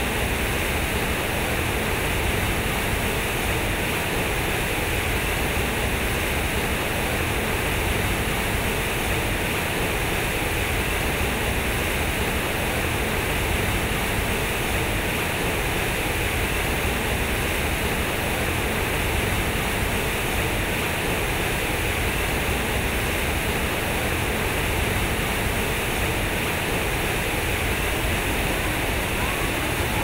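Heavy streams of water pouring from a concrete fountain's square outlets and splashing into the pool below, a steady rush that does not change.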